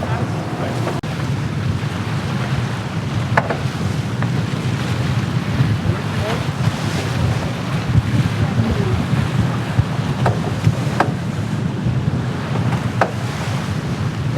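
Wind buffeting the microphone and water rushing past the hull of a VO65 racing yacht under sail, with a few sharp knocks scattered through.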